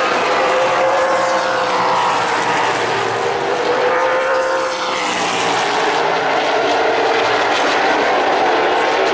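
A pack of dirt-track stock cars racing around the oval, several engines running loud together, their pitch rising and falling as the cars pass.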